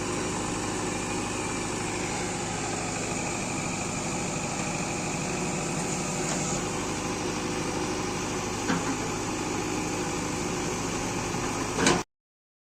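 Heavy diesel engine running steadily, with a short knock about nine seconds in and a louder clank just before the sound cuts off near the end.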